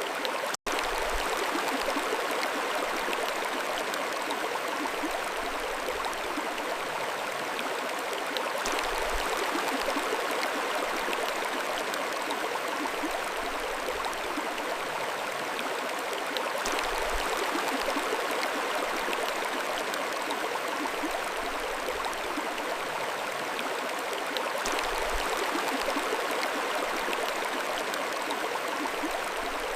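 Mountain stream flowing steadily, a continuous rush and babble of water. About half a second in, the sound drops out for an instant.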